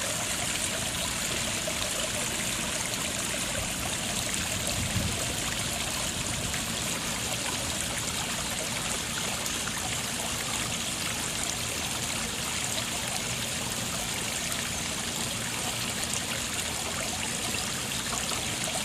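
Backyard pond waterfall running again after being shut down, water splashing and trickling over the rocks into the pond in a steady flow.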